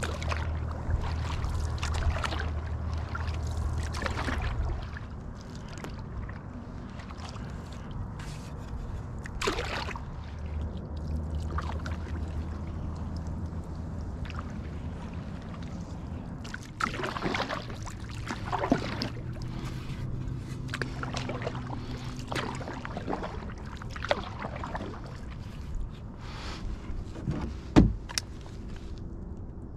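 Canoe being paddled across calm water, with paddle strokes and scattered knocks of the paddle against the hull. One loud, sharp bang comes near the end.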